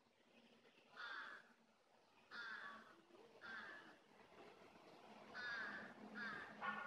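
A crow cawing: about six short, harsh caws spaced irregularly, the last three coming closer together near the end.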